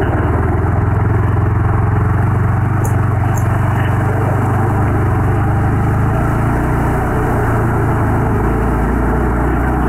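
Yamaha R15 V3 motorcycle's 155 cc single-cylinder engine running under way. Its note falls in the second half.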